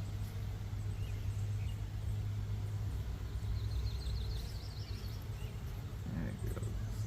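A small bird's rapid trill of quick repeated notes about halfway through, with a few short chirps earlier, over a steady low outdoor rumble.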